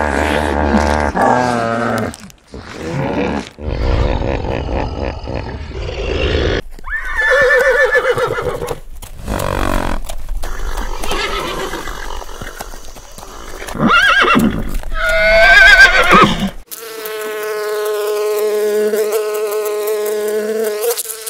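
Horses neighing and whinnying a few times, the loudest calls about two-thirds of the way through, followed by a steady buzz of honeybees for the last few seconds.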